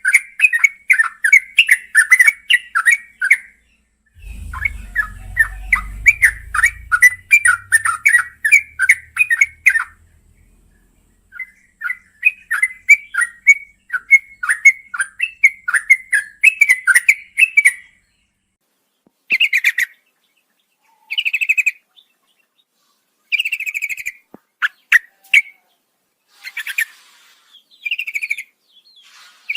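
Yellow-vented bulbul singing: long, fast runs of bubbly chattering notes, about five a second, in three stretches. After those, short separate phrases follow at intervals of a second or two.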